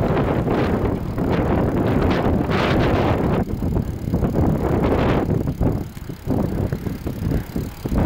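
Strong wind buffeting the microphone of a camera riding along a road, likely on a bicycle: a loud, gusty rumble that eases and dips a few times near the end.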